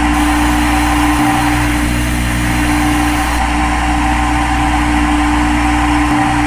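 A machine running steadily, a constant hum with a steady pitched whine and no change in speed.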